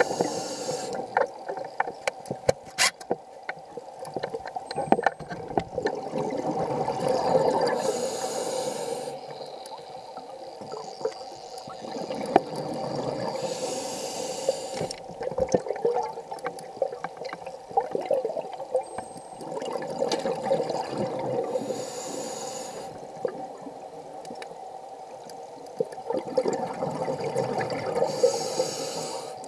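Scuba diver's regulator breathing underwater: a short hiss on each inhalation, about every seven seconds, followed by a longer bubbling gurgle of exhaled air.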